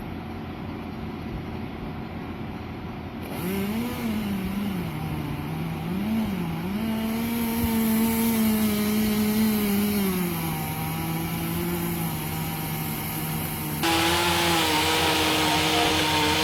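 An engine running, its pitch rising and falling several times and then holding steady, with a step up in loudness about three seconds in and again near the end.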